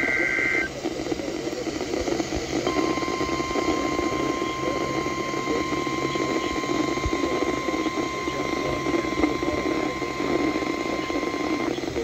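NOAA Weather Radio Required Weekly Test through a handheld emergency radio's small speaker. The last burst of the digital SAME header ends within the first second. After about two seconds of static, the steady 1050 Hz weather alert tone sounds for about nine seconds, over constant background static.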